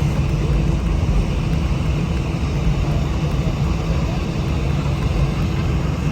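Airbus A319 cabin noise with the jet engines running: a steady low rumble under a faint, even hum.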